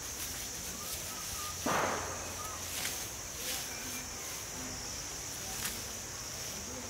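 Steady high insect drone with faint bird chirps. A short, loud swish of noise comes about two seconds in, with a few light clicks and snaps around it.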